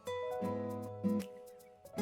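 Background music: gentle plucked acoustic guitar notes over a sustained melody line.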